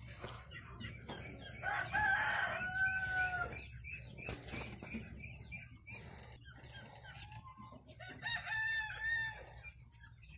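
A rooster crowing twice, about two seconds in and again near the end, with hens clucking in between.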